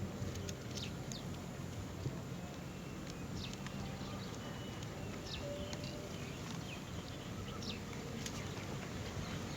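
Birds chirping: short, high, scattered chirps, several in a few seconds, over a steady low background hum.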